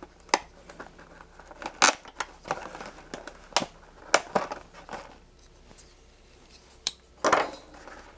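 Sharp clicks and taps, with a longer crinkling rustle near the end, as the stapled packaging of an electronics kit is opened and its bag and parts are handled.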